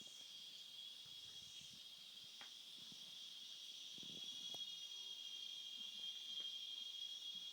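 Faint, steady, high-pitched insect chorus that swells and fades slowly, with a few faint knocks.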